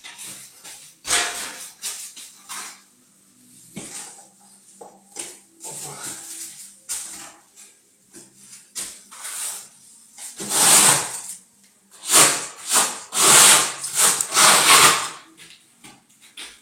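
A steel trowel scraping stone-chip decorative plaster across a wall in a series of uneven strokes, the longest and loudest in the second half.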